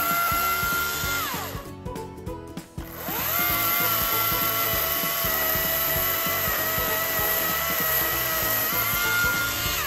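Small electric chainsaw cutting snow-laden tree branches, its motor running at a steady whine. It winds down and stops about a second and a half in, spins up again about three seconds in, and runs until it winds down at the very end.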